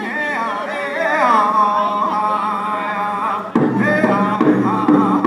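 Round dance song: a group of singers voicing high, wavering vocables. About three and a half seconds in, a loud steady drum beat comes in under them.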